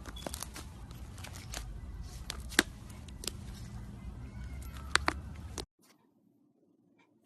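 Iceberg slime being pressed and squeezed by hand, its hardened crust crackling with sharp irregular clicks and pops over a low rumble; the sound cuts off abruptly near the end.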